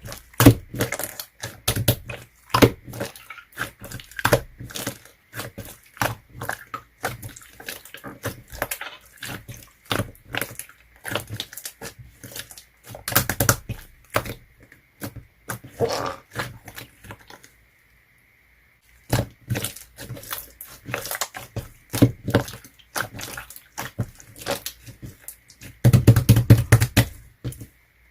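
Clear slime being squeezed and pressed by hand, giving a fast, irregular run of wet clicks and pops. It stops for a moment a little past the middle, then goes on, densest near the end.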